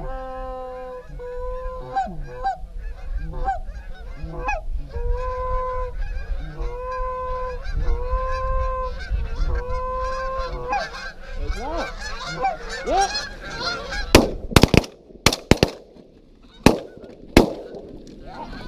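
Geese honking repeatedly, in long steady notes and shorter gliding ones. Then, about three-quarters of the way in, a volley of shotgun blasts: six or seven sharp shots within about three seconds.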